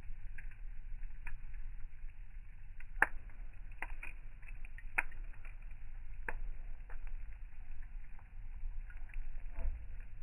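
Campfire crackling, with irregular sharp pops of burning wood, the loudest about three and five seconds in, over a steady low rumble.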